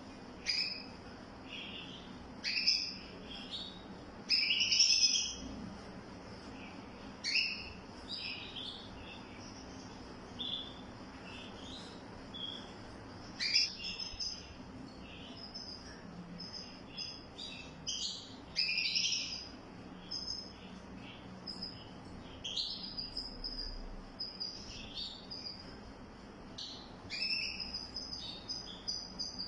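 A songbird singing: a long, irregular run of short chirps and quick phrases, some louder than others, with brief pauses between them.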